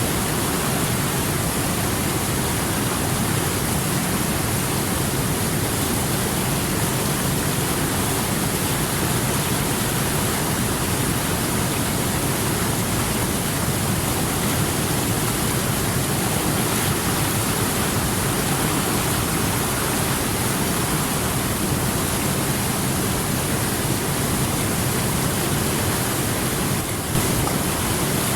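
River water rushing steadily, a dense, even sound without pauses.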